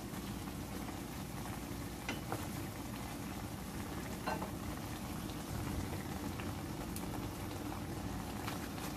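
Chicken gizzards and livers simmering in their juices in a stainless steel pan: a steady low bubbling, with a few small pops and ticks.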